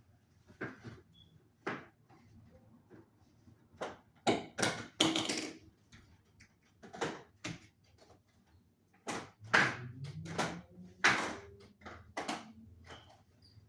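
A series of irregular knocks and clunks, loudest in a cluster about four to five seconds in and again from about nine to eleven seconds in.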